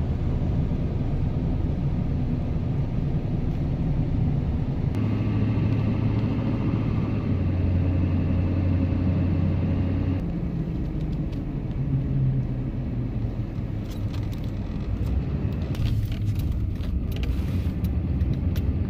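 Car or truck driving, heard from inside the cab: a steady low engine and road rumble, with the engine note holding one pitch for a few seconds in the middle. A few short clicks come near the end.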